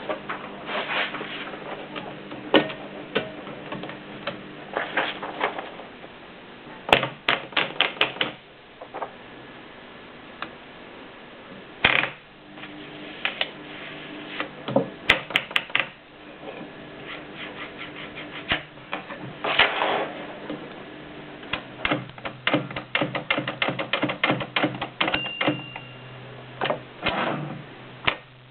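AEG Mignon index typewriter typing in Fraktur script: irregular runs of sharp key-and-typebar clacks, broken by pauses of a second or two. A short ringing tone sounds near the end.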